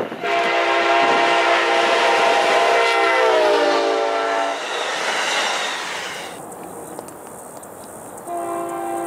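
A diesel passenger locomotive's air horn sounds a chord as the train comes up at speed, the pitch dropping as it passes, followed by the rush of the passing train. About a second before the end another train horn chord begins, steadier and quieter.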